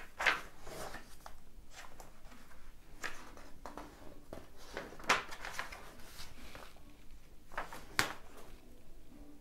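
Pages of a thin, old paper magazine being turned and handled: a series of short papery swishes and rustles, the sharpest about five and eight seconds in.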